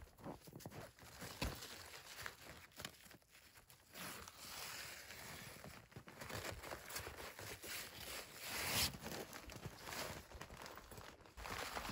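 Boots scuffing in packed snow and tent fabric rustling as a hot tent's door panel and flap are handled, with a few small knocks.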